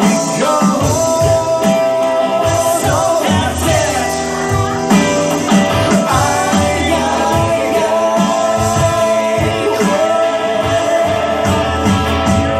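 A live rock band playing, with a man singing over electric guitar and a drum kit, recorded on a phone from the audience.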